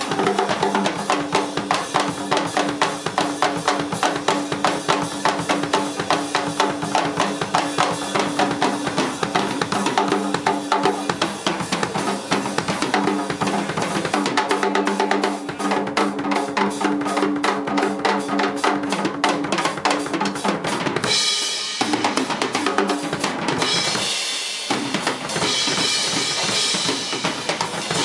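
Live drum kit solo: fast, dense strokes on the snare, toms and bass drum, with the drums ringing. About three quarters of the way through, the low drums drop out briefly, and after that a brighter, hissier wash takes over.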